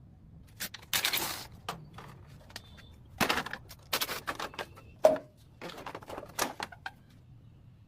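Irregular clicks, knocks and short scrapes from hand tools and parts being handled during repair work, the loudest a sharp knock about five seconds in.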